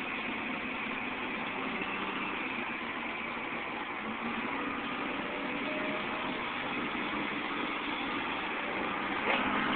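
Caterpillar 235 excavator's diesel engine running steadily while it digs, with a sharp knock near the end.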